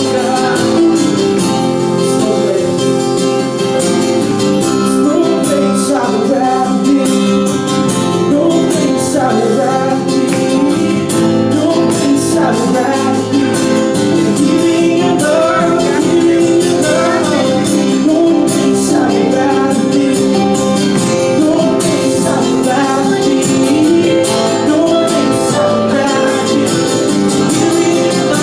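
Live worship music: singing over guitar and a band, loud and continuous.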